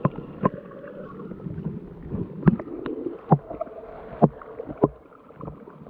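Fishing kayak on a river: irregular knocks and thumps against its plastic hull, about six, over a low wash of water.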